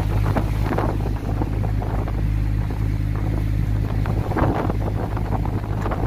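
A boat's engine running steadily with a low drone, under wind buffeting the microphone and the wash of rough seas against the hull.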